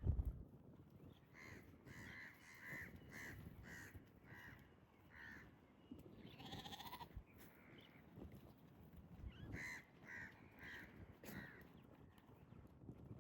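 Goat bleating: one drawn-out bleat about halfway through, with runs of short, quick calls before and after. A knock at the very start.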